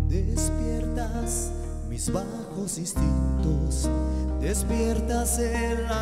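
A live band playing a slow ballad: held low bass notes that change about every three seconds, guitar and other sustained tones above them, and light high percussion hits about once a second.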